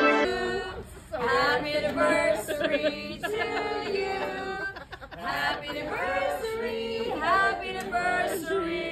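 Singing voices with music: a song with sung lines rising and falling.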